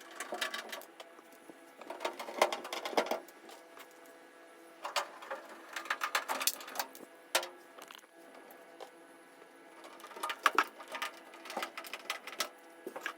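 Bursts of quick clicking and rattling, four times, as parts of a portable clothes dryer are handled and worked on during a belt repair.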